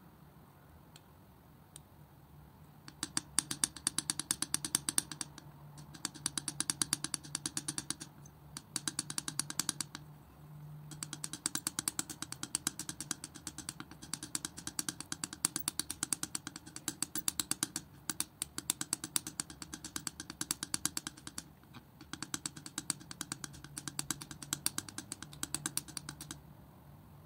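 Metal palette knife working thick acrylic paint, a fast run of sticky clicks and taps, many a second, with a few short pauses. It starts about three seconds in and stops near the end.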